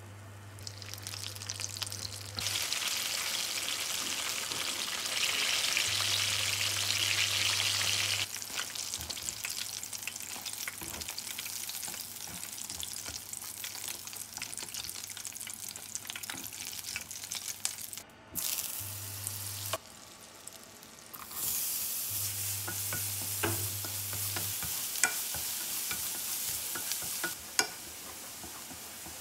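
Coated chicken wings deep-frying in hot oil: a steady sizzle and crackle, louder for several seconds near the start. Near the end, minced garlic sizzles in a little fat and is stirred with chopsticks, with light taps on the pan. A low hum comes and goes.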